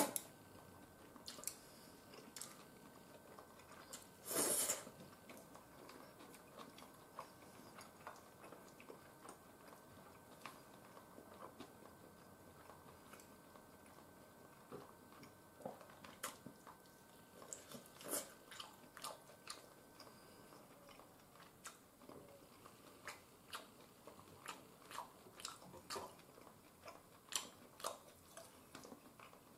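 A person eating stir-fried udon noodles with chopsticks from a bowl: quiet chewing and many small clicks, with one short, louder slurp of noodles about four seconds in.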